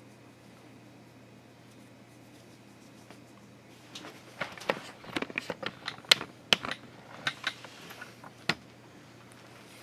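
Handling noise on the camera: a cluster of sharp clicks, taps and rustles from about four seconds in until past eight seconds, after a few seconds of quiet room tone with a low hum.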